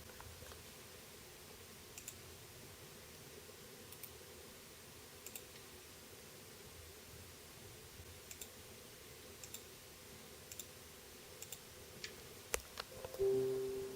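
Faint, light clicks from an Android tablet being tapped through its menus, roughly one a second. Near the end comes a quick cluster of clicks, then a short tone that fades out.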